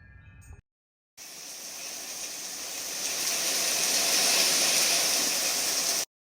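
Wind chimes ring briefly and are cut off. After a short silence comes the steady hiss of heavy rain pouring down, growing louder over a few seconds before it cuts off abruptly.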